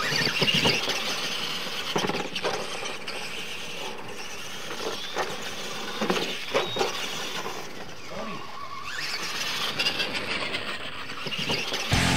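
Radio-controlled monster trucks racing on a dirt track: motors whining up and down in pitch as they accelerate, with tyres scrabbling through loose dirt and several sharp knocks from jumps and landings.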